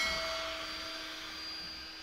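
Rotary tool spinning a wire brush against the cast aluminium end housing of a car starter motor: a steady motor whine with a scratching hiss as the casting is cleaned.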